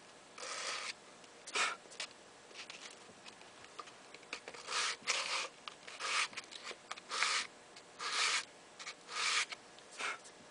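Hand sanding: sandpaper on a sanding block rubbed over a hacksaw-cut wooden block, about nine separate short rasping strokes with pauses between them, taking down the saw's rough ridges.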